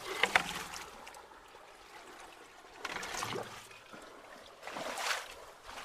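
Ditch water trickling and splashing as debris is raked out of a blocked culvert, with louder splashes at the start, about three seconds in and about five seconds in.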